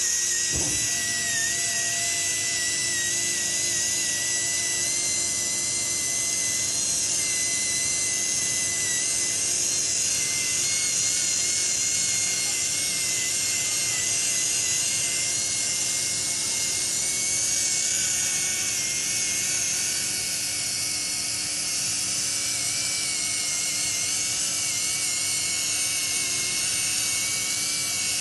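Right-angle rotary polishing handpiece running against a steel mold cavity at the 1200-grit polishing stage: a steady high-pitched whine over a hiss, its pitch wavering slightly. There is a brief low thump about half a second in.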